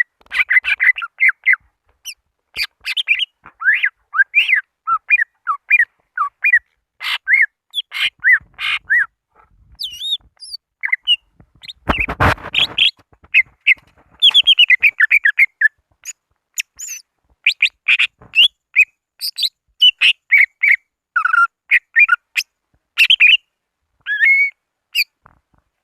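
Greater green leafbird (cucak ijo) singing in a fast, varied stream of chirps, whistled glides and trills, its challenge call to rival birds. About twelve seconds in, a loud, harsh burst lasts about a second.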